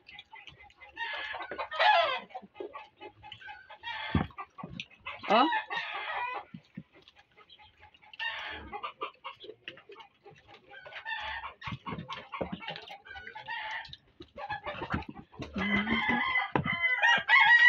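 Chickens clucking and a rooster crowing: a string of short pitched calls every second or two.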